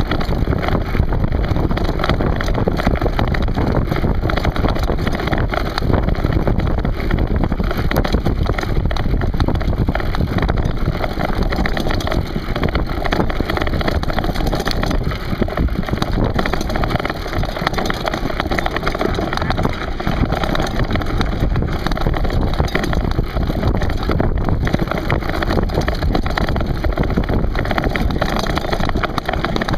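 Steady rushing of wind on the microphone, mixed with the rumble and rattle of mountain bikes rolling over a loose rocky trail.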